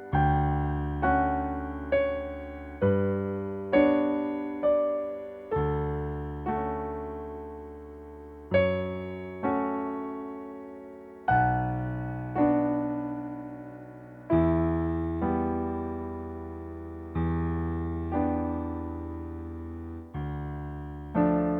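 Yamaha EZ300 keyboard's grand piano voice playing slow chords over low bass notes, each chord struck and left to die away before the next.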